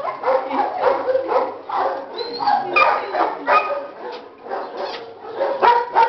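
A litter of puppies barking and yelping, short high calls overlapping at about three a second without a break.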